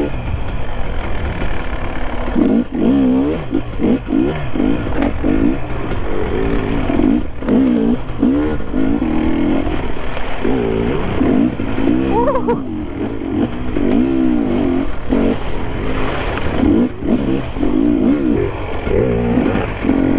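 Sherco enduro motorcycle engine revving up and down over and over while riding a muddy off-road trail, its pitch rising and falling every second or two.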